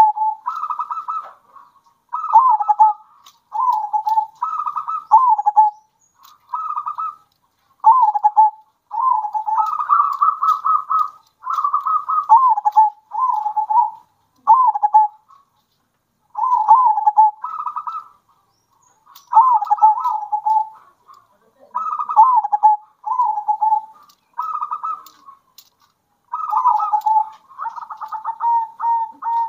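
Several zebra doves (perkutut) cooing in turns: short phrases of quick fluttering notes that step down in pitch, repeated with brief pauses, the calls running together near the end.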